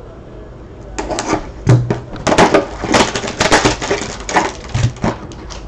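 Crinkly wrapper packaging of trading card packs being torn and handled: a quick, irregular run of crackles and rustles starting about a second in and dying away near the end.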